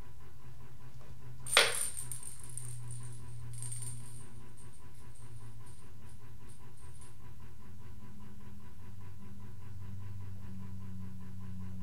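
A sharp metallic clink about a second and a half in, followed by several seconds of faint high tinkling, like a small jingle being jostled, over a steady low hum.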